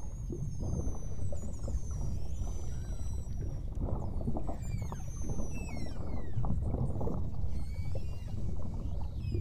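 Beluga whales whistling underwater: many high chirping whistles, some held and warbling, others gliding quickly downward, over a steady low rushing underwater noise.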